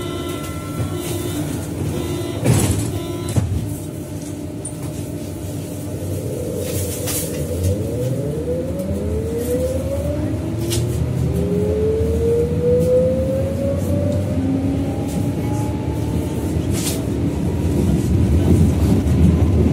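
Berlin U-Bahn class H train pulling away from the platform, heard from inside the car. There is a knock a couple of seconds in, then the traction drive's whine climbs in several rising tones as the train accelerates, with wheel and running noise building.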